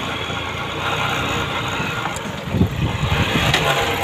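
Motorcycle running while being ridden along a rough dirt track, with bursts of low rumble about two and a half seconds in.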